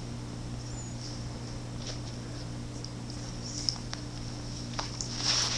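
A dog licking with its mouth, making faint wet clicks: a few scattered ones, then a denser run near the end, over a steady low electrical hum.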